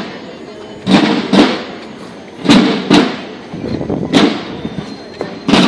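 Processional drums beating a slow, steady rhythm of paired strikes, about one pair every second and a half.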